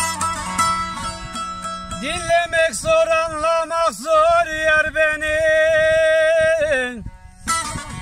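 Saz (bağlama) being strummed and plucked in a Turkish folk uzun hava. From about two seconds in, a loud, held, wavering melody line sits over it. That line falls away in a downward glide near the end, and after a brief pause the strumming resumes.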